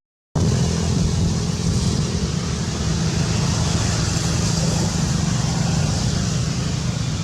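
Steady low rumble with a hiss over it, beginning after a brief silent dropout at the start.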